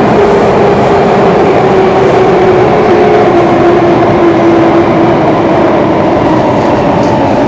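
Singapore MRT train running through a tunnel, heard from inside the carriage: a loud, steady rumble of wheels and running noise, with an electric motor whine that slides slowly lower in pitch.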